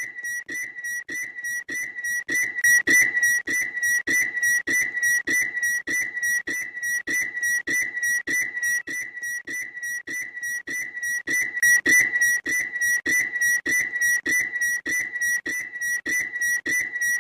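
A bird's shrill, high whistled note repeated rapidly at about three times a second, on one unchanging pitch, without a pause.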